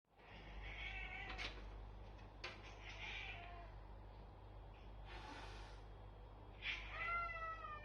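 A cat meowing in three drawn-out calls, the cat-in-heat vocalising of the scene.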